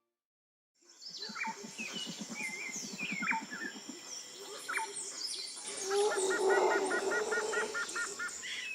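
A chorus of wild birds calling: many whistles, chirps and downward-sliding calls. A low rapid pulsing runs through the first few seconds, and a quick run of about ten repeated calls comes near the end.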